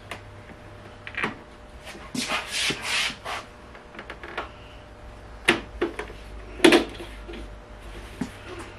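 Interior trim on a Porsche 924 door being pried at with a screwdriver. There is scraping and rubbing about two seconds in, then several sharp clicks and knocks.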